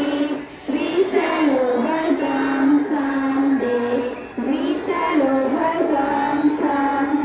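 A song sung by children's voices, with short breaks between phrases about half a second and about four seconds in.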